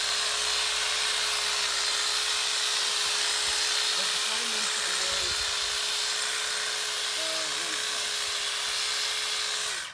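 Corded electric hedge trimmer running steadily while trimming a hedge, a constant motor hum over the buzz of the blades. It cuts out suddenly at the very end as it is switched off.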